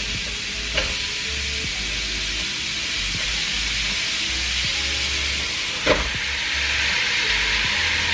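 Raw ground-beef hamburger patties sizzling on the hot ribbed plates of a Cuisinart Griddler contact grill set to sear, a steady hiss. Two short knocks come about one second and six seconds in.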